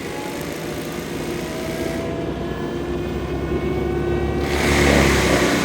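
John Deere skid steer's diesel engine running under load, driving a hydraulic stump grinder, with pitched whines that drift up and down. About four and a half seconds in, the sound turns louder and rougher.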